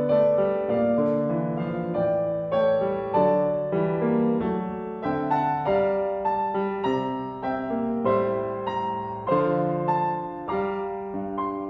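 Piano music: a slow, gentle piece of notes and chords struck one after another, each left to ring and fade.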